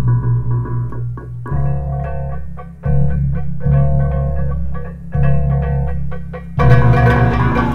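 Balinese baleganjur gamelan playing: deep gongs and pitched metal gong-chimes ring over drums in short phrases with brief breaks. About six and a half seconds in, the full ensemble comes in much louder and brighter with a crashing metallic layer.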